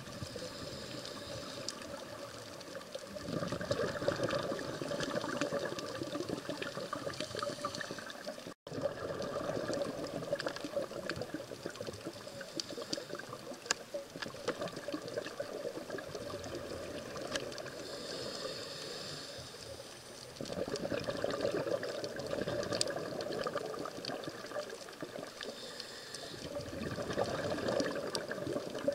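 Underwater sound of a scuba diver breathing through a regulator: a short hiss on each inhale, then several seconds of rushing, bubbling exhale, repeating a few times, with faint scattered clicks throughout. The sound cuts out for an instant about a third of the way in.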